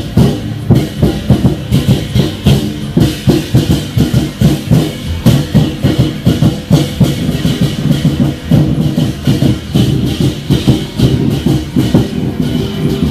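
Procession percussion music: drums beating a fast, steady rhythm of several strokes a second, with a constant bright ringing layer above the drums.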